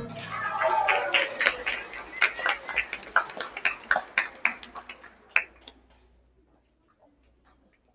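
A run of sharp, irregular taps, three or four a second, thinning out and stopping about six seconds in, right after a loud piece of music cuts off.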